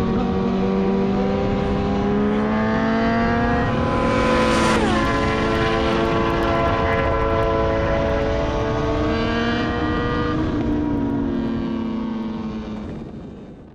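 Motorcycle engine running at steady revs, its pitch dipping briefly about five seconds in, then fading out.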